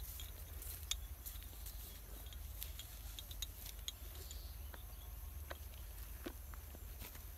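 Faint outdoor ambience: a steady low rumble under scattered small clicks and rustles, some sharp and high, a few duller ones in the second half.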